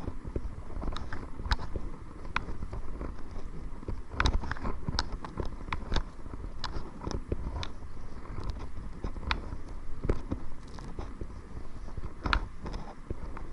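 Kayak being paddled into the wind: irregular knocks, splashes and clicks of paddle and water against the hull, over a low wind rumble on the microphone.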